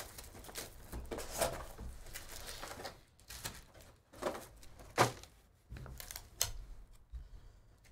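Cardboard trading-card hobby box being opened by hand: flaps pulled back and card packs taken out and set down in a stack. Irregular rustles and small knocks, with the sharpest knock about five seconds in.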